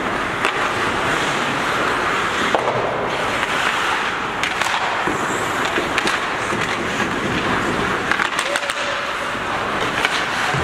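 Ice hockey play: skate blades scraping and carving the ice, with sharp clacks of sticks and puck scattered throughout and a cluster of them about eight seconds in.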